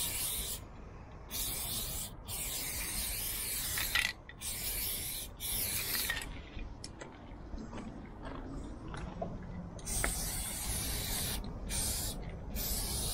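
Aerosol spray-paint can hissing in repeated bursts of one to two seconds as paint goes onto a train car's metal side. There is a pause of a few seconds about midway, then the bursts resume.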